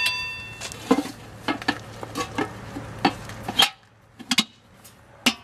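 Metal hubcap being pressed and tapped onto a van's steel wheel: a scatter of light metallic clicks and knocks as it seats.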